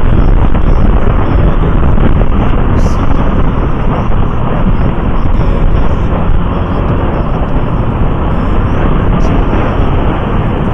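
Steady wind and road noise from a moving motorcycle in traffic, loud and heaviest at the low end, as picked up by a camera mounted on the bike.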